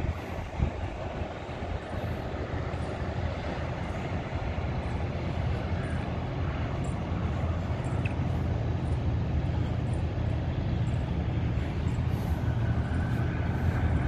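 Steady low engine rumble, growing slightly louder toward the end.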